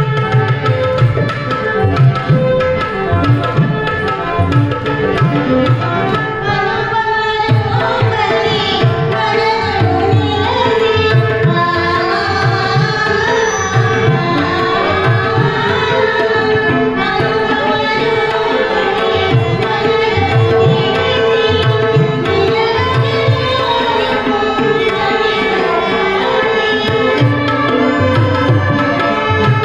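Live accompaniment for a stage dance: tabla playing a steady rhythm under an electronic keyboard holding a sustained note, with a voice singing a winding melody over them.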